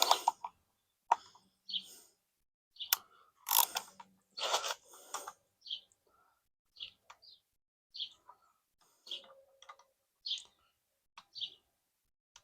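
Hand socket ratchet clicking in short bursts as the small M6 bolts holding a motorcycle stator are snugged down. Bird chirps sound in between.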